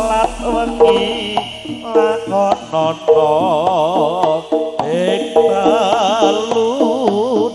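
Live Javanese jaranan ensemble music: a wavering, ornamented melody line over a steady held note, with drum strokes throughout.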